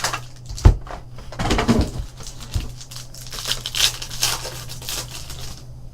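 Plastic wrapping of a trading card box and packs being cut and torn open: irregular crinkling, tearing and rustling, with one sharp knock under a second in.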